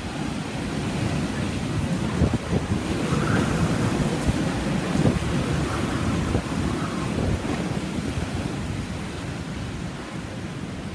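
Typhoon wind and heavy rain, gusting in a continuous rush that swells a few seconds in and eases toward the end, with wind buffeting the microphone in short low thumps.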